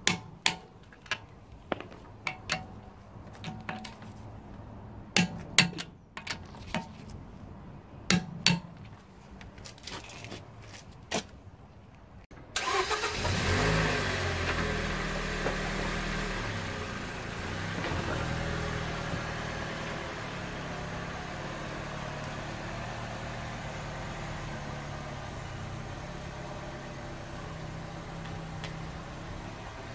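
A wrench clicking sharply on the wheel nuts, about twenty single clicks with pauses between. About twelve seconds in, the Toyota Yaris's engine starts and runs steadily as the car is driven slowly off its ramps.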